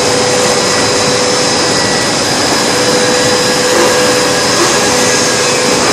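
DF plastic extruder line for ball pen tubes running: a steady, loud machine noise with a constant whine over it.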